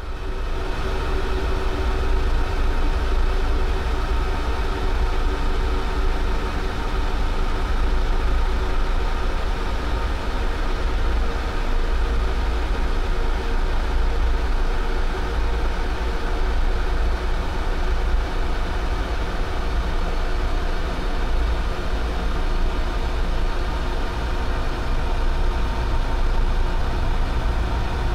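A steady low rumble with sustained droning tones above it, like a metro train's running noise, swelling up in the first second and then holding even.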